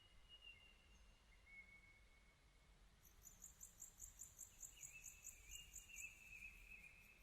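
Faint outdoor background with high-pitched insect chirping: a thin steady high tone, and about three seconds in a quick run of high chirps at about four a second that lasts some three seconds.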